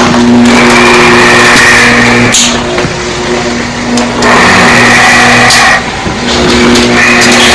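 Monster sound effect: loud, drawn-out screams on a steady pitch, each held for about two seconds, coming one after another with short breaks between them.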